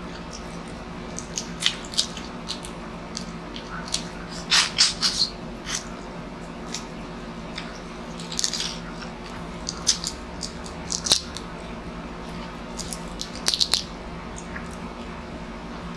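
Close-up eating sounds: irregular smacks, clicks and crunches of chewing seafood, in small clusters, over a steady low hum.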